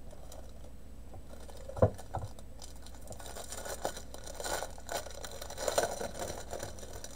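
A single knock on the table about two seconds in, then light, scattered rustling and crinkling of plastic packaging being handled.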